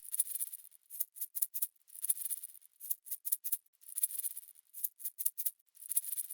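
A dry, high shaker-like rattle in a regular repeating rhythm: one longer shake followed by four quick short ones, about every two seconds, with nothing deep underneath.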